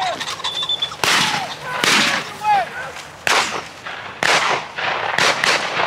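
A volley of shotgun shots, about six, from hunters firing at a flushed pheasant, each a sharp crack with a short fading echo. A couple of honking bird calls come in between the first shots.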